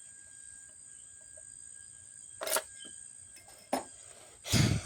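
A few short knocks and clicks of chainsaw parts being handled while the bar and chain are fitted, the loudest a thump near the end. A steady high chirring of crickets runs underneath.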